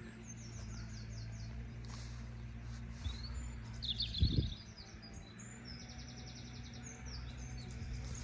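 Small songbirds singing: runs of quick high chirps and trills, over a steady low hum. A brief low thump about four seconds in.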